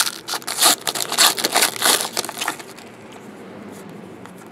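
Foil wrapper of a 2015 Contenders football card pack being torn open and crinkled by hand: a dense, rapid crackle for about two and a half seconds that then stops.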